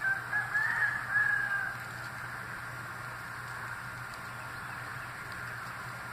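A rooster crows once at the start, a call of about a second and a half in several linked parts that rise and fall in pitch.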